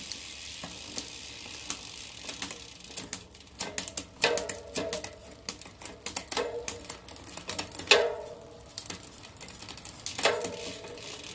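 A mountain bike's rear derailleur and cassette being run by hand on a stand while shifting through the gears: the chain clicks and rattles over the cogs steadily, and short buzzing clatters come about four times as it moves onto new cogs.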